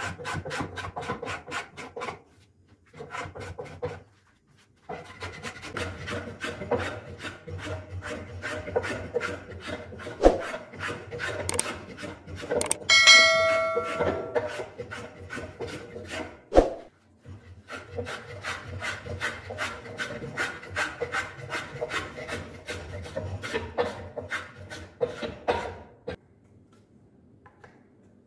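A hand tool rasping along the willow blade of a cricket bat in quick strokes, about three a second, with brief pauses, stopping shortly before the end. About halfway through, a bell chime rings, with a sharp click a few seconds before and after it.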